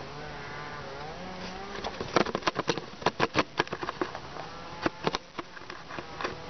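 A drawn-out, wavering low voice-like sound in the first two seconds, then a run of sharp clicks and knocks close on the microphone from about two seconds in, as the cats' fur and bodies brush and bump against the ground-level camera.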